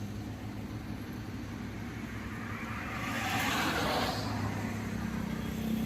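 A motor vehicle's engine running steadily, with a rush of noise that swells and fades about three to four seconds in.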